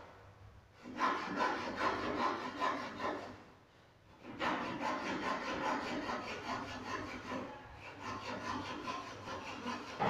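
Saw cutting through wood with quick rasping strokes. The sawing starts about a second in, breaks off briefly near four seconds and then carries on.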